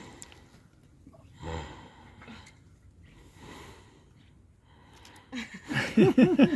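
Low background noise with a brief voice sound about a second and a half in, then a person laughing breathily from about five seconds in.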